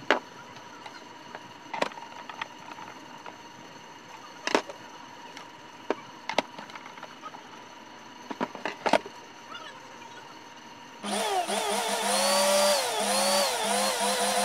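Sharp clicks and knocks of a screwdriver and the hard plastic blender base being handled as its bottom screws are driven in, about half a dozen over ten seconds. About eleven seconds in, loud music with a sliding melody and a pulsing beat starts.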